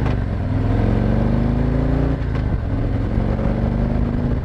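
Harley-Davidson Street Glide's V-twin engine pulling hard as the motorcycle accelerates. The revs climb, dip at a gear change about two seconds in, then climb again.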